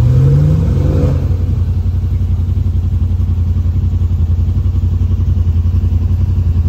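Yamaha RMAX side-by-side's engine rising in pitch as it revs up during the first second, then running steadily.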